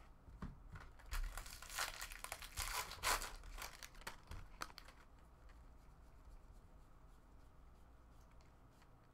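Foil wrapper of a baseball card pack being torn open and crumpled: a run of crackling and tearing for about four seconds near the start.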